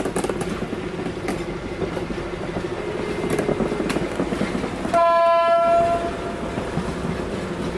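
PKP class SM42 diesel locomotive running slowly past at close range, its engine humming steadily, with occasional knocks from the wheels over the rails. About five seconds in it sounds one horn blast lasting about a second.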